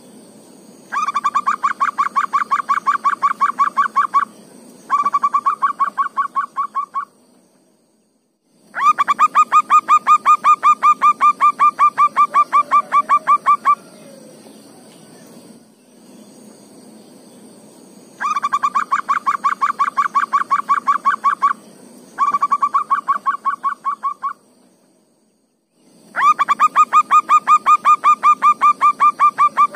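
Zebra dove (perkutut) cooing: bursts of rapid staccato coos at about ten notes a second, each burst lasting two to five seconds, six bursts with short pauses between. A steady faint high hiss runs underneath.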